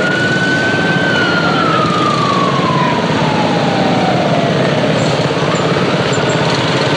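A siren climbing to its top pitch and then slowly winding down over about four seconds, starting to rise again near the end, over steady background noise.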